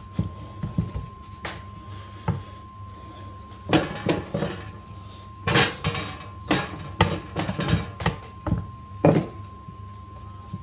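Kitchenware being handled: a run of knocks, clinks and scrapes. They are scattered at first and come thick and fast about four seconds in and again from about five and a half to nine seconds. A faint steady tone runs underneath.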